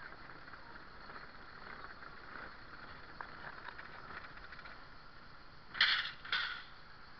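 A car rolling slowly over cobbles and an earthen lane, heard from inside through a dashcam: low, crackly tyre and cabin noise. Near the end come two short, louder noises about half a second apart.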